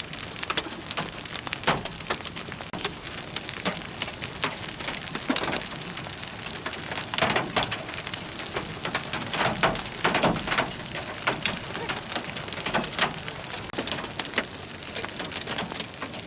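Heavy rain with large hailstones striking hard surfaces: a steady downpour hiss broken by irregular sharp knocks, several of them loud.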